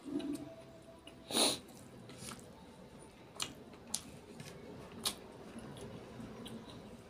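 Close-miked eating by hand: scattered sharp mouth clicks and smacks while chewing, with one short, loud, breathy hiss about a second and a half in.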